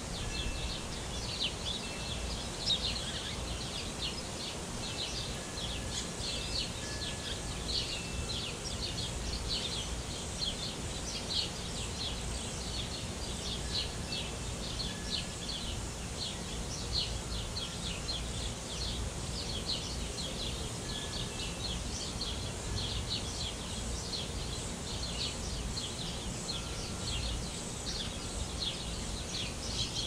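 Many small birds chirping continuously over one another, with a steady low rumble underneath.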